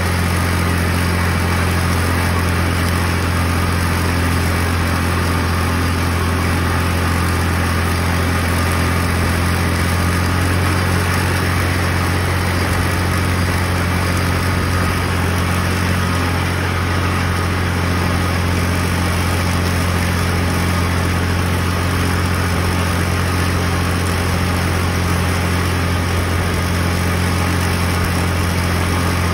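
Small tractor's engine running steadily with a strong low hum, driving a belt-and-pulley mower that cuts strawberry plants between the rows.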